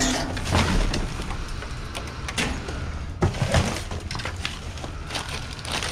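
Cardboard boxes, plastic bags and packaging in a dumpster being rummaged through by hand: irregular rustling and crinkling, with a few sharper clattering knocks a little past the middle.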